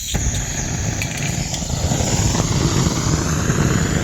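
Gas torch lit with a sharp click near the start, then its flame burning with a steady rushing noise and low rumble.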